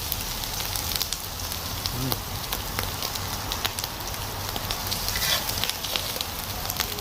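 Meat sizzling on an oiled tabletop barbecue grill, with fat crackling and popping steadily.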